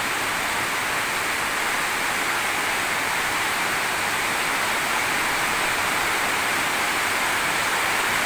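Heavy tropical rain pouring down in a steady, dense hiss.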